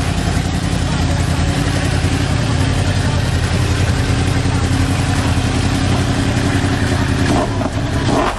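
Yamaha R1M's crossplane inline-four engine running steadily at low revs, with a change in its note near the end.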